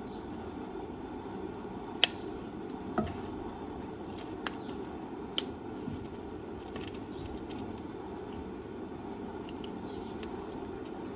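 Steady appliance hum with a handful of sharp clicks and knocks from kitchen work, mostly in the first half.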